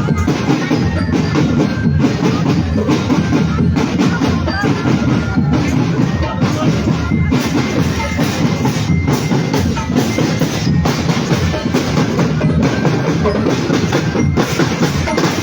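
Marching drumband playing: snare and bass drums beating a steady, dense rhythm, with bell-like glockenspiel notes ringing over it.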